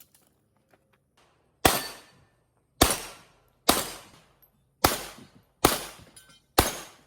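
HS2000 pistol fired six times in a timed practice string, about one shot a second, each a sharp crack with a short decaying tail.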